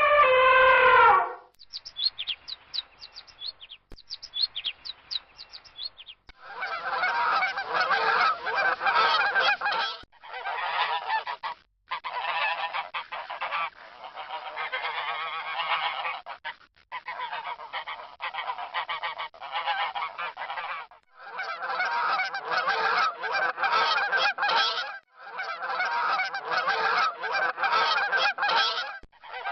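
A flock of geese honking, many birds calling over one another in several bursts separated by short breaks. Before it, a finch gives quick high chirps for a few seconds, and a long falling call, in keeping with an elephant trumpeting, ends about a second in.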